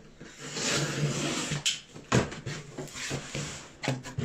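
A large cardboard box being opened: packing tape slit with a knife and the flaps pulled apart. The cardboard scrapes and rustles in long stretches, with a few sharp clicks and knocks.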